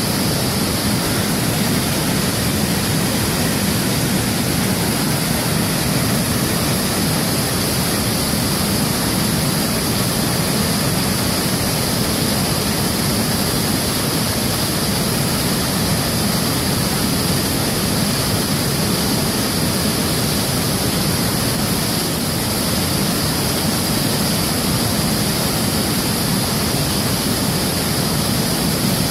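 Steady rush of fast-flowing river water, an even roar that holds unchanged throughout.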